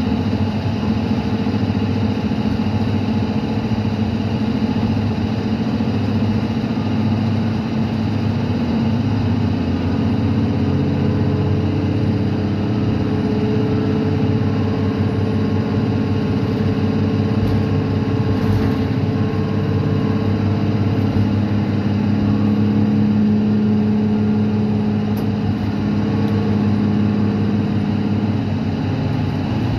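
Cabin of a 2015 Gillig Advantage low-floor bus under way: its Cummins ISL9 diesel runs steadily under road noise. The engine note grows louder for a few seconds about three quarters of the way through.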